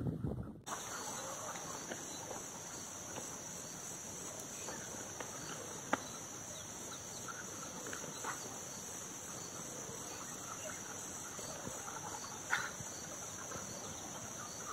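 Wind on the microphone cuts off within the first second, leaving a steady high-pitched insect drone, typical of crickets, with a couple of faint clicks and a few short faint calls over it.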